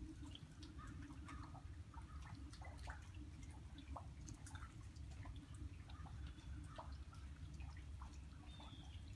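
Water dripping irregularly in small ticks, over a low steady rumble.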